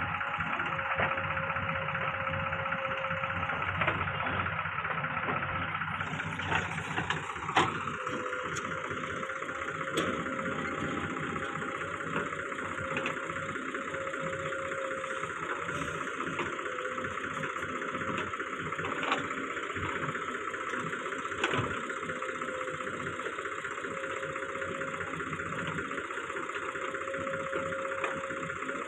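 Heavy diesel engines of a backhoe loader and tractors running steadily under work, with a few sharp knocks now and then.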